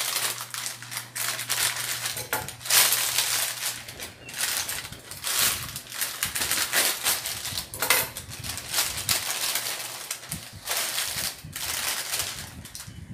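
Clear plastic food bags crinkling and rustling as they are snipped with scissors and pulled apart by hand, in irregular bursts, over a steady low hum.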